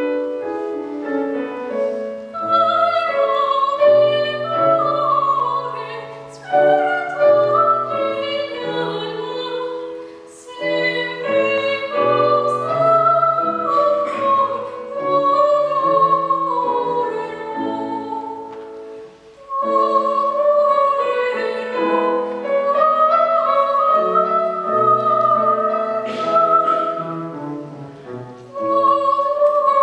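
A child singing a classical song in trained academic style with piano accompaniment: long held notes with vibrato over a piano part, with brief breaks between phrases.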